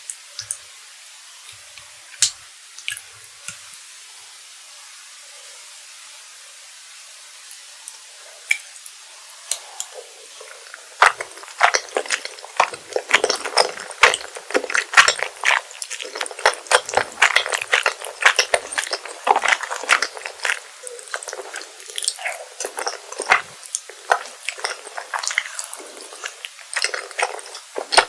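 Close-miked eating of rosé tteokbokki: chewy rice cakes in creamy sauce being chewed with wet, squishy, sticky clicks. For about the first ten seconds there are only a few scattered clicks over a faint hiss, then the chewing sounds come thick and fast.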